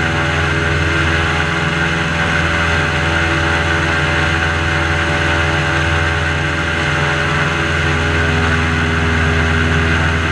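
Airboat's engine and air propeller running steadily at cruise: a loud, even drone.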